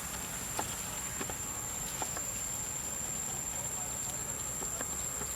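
Insects, crickets or cicadas, keep up a steady high-pitched drone, with a few light scattered clicks on top.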